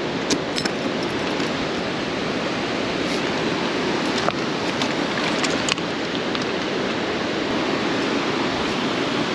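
Steady rushing of flowing water, with a few faint clicks.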